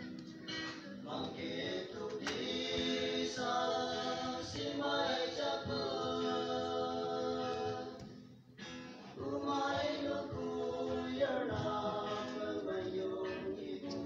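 A choir singing phrase after phrase, several voices together, with a brief pause about eight and a half seconds in.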